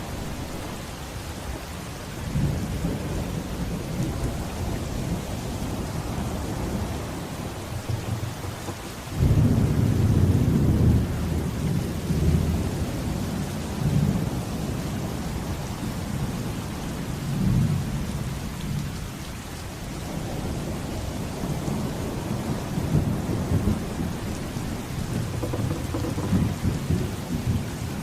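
Steady heavy rain with rolling thunder. A loud rumble of thunder breaks in suddenly about nine seconds in and fades over a few seconds, and lesser rumbles swell and die away later.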